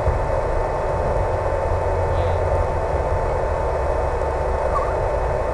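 HobbyZone Super Cub RC plane in flight: a steady electric motor whine with a constant tone over a rushing wind noise.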